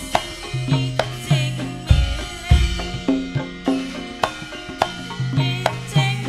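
Javanese gamelan playing an instrumental passage: sharp hand-drum strokes about every half second over ringing, held metallophone notes.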